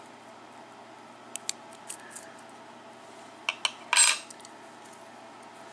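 Small metal lock-cylinder parts clicking and tapping, then a short metallic clatter about four seconds in, as pins drop onto a hard surface.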